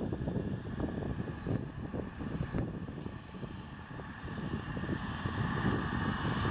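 Twin-turbofan Embraer regional jet in United Express colours taxiing past at low power: a steady engine rumble with a thin whine that grows louder over the last couple of seconds.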